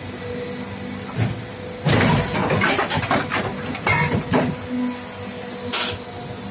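Plastic cap injection moulding machine running: a steady hum with a constant whine, then from about two seconds in a couple of seconds of hissing and sharp knocks as it works through its cycle, and one more short hiss near the end.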